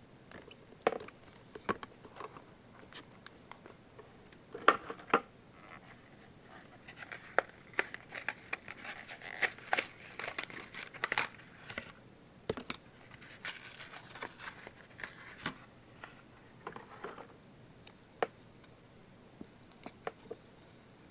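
Handling noise: irregular small clicks and taps, with a stretch of crinkly rustling in the middle, as plastic card stands and trading cards are fitted together and adjusted.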